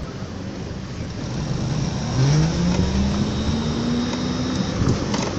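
A motor vehicle accelerating over a steady rumble of traffic, its engine note rising in pitch for about two seconds from a little after the start.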